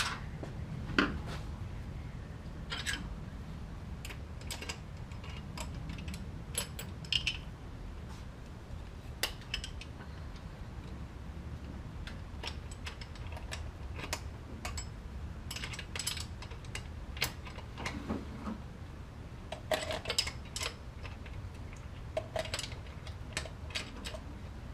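Hand tools working on an engine's carburetor mounting: scattered sharp metallic clicks and clinks, a few at a time with gaps between, over a steady low hum.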